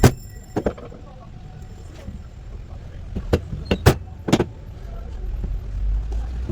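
Scattered sharp knocks and clicks, about six of them and mostly bunched in the middle, from tools and grinder parts being handled on a workbench, over a steady low rumble.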